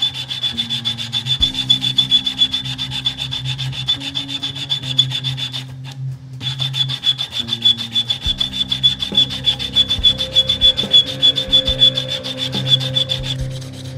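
Sandpaper on a wooden sanding block rubbed fast back and forth across the end of a small wood blank held in a vise: an even, rhythmic rasping that stops briefly about six seconds in, then resumes.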